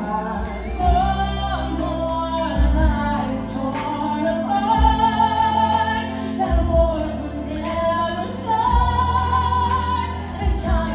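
Live singing through a microphone over musical accompaniment, with long held, sustained notes: a Christmas song performed by the bar's singing staff.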